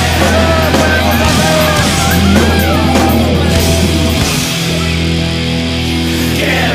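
Loud heavy rock music, with a steady low bass line and bending melodic lines over it in the first few seconds.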